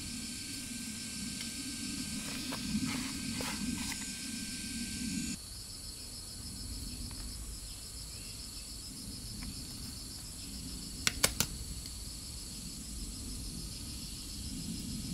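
Insects chirping in a fast, even pulsing rhythm. A low rushing noise cuts off abruptly about five seconds in, and three sharp clicks come close together about eleven seconds in.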